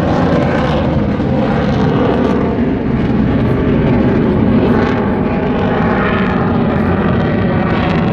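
Jet aircraft flying overhead: loud, steady jet engine noise.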